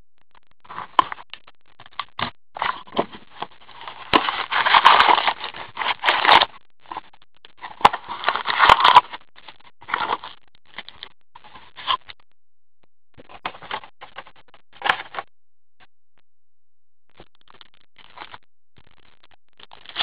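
Plastic shrink-wrap and foil hockey card packs crinkling and rustling in gloved hands as a sealed box is cut open and its packs are pulled out and handled. The crinkling comes in irregular bursts, loudest about four to six seconds in and again around nine seconds.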